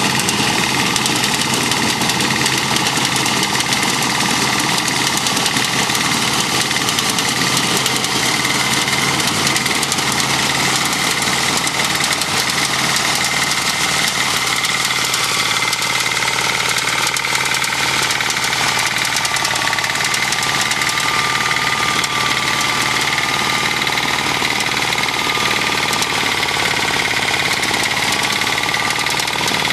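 Small engine of a walk-behind self-propelled soybean reaper running steadily while the machine cuts through the crop.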